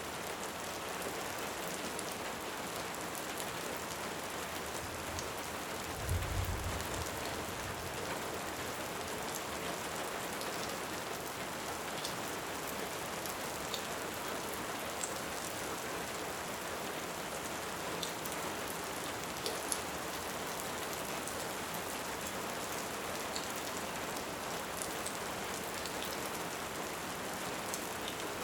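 Steady rain with small scattered crackles of a wood fire, and a brief low rumble of distant thunder about six seconds in.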